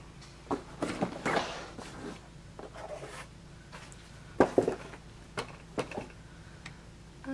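Trays of sunglasses being handled and shuffled: a series of separate knocks and clatters, the loudest a quick pair of bumps about four and a half seconds in.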